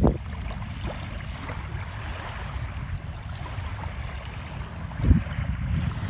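Small lake waves lapping and washing against a gravel shoreline, under steady wind rumble on the microphone. Two louder low bursts stand out, one at the very start and one about five seconds in.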